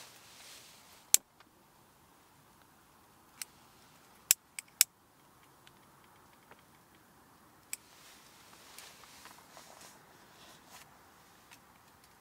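Wood fire crackling in a small tent stove: quiet, with a handful of sharp pops, several close together about four to five seconds in.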